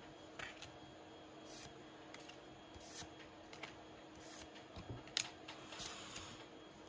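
Pokémon trading cards handled and flipped through one at a time: faint swishes and light snaps as cards slide across each other, with a sharper snap about five seconds in.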